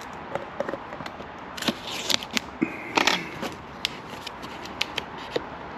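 Cardboard shipping box being slit open with a razor blade: short rasping cuts through packing tape and cardboard, mixed with irregular clicks, scrapes and rustles of handling.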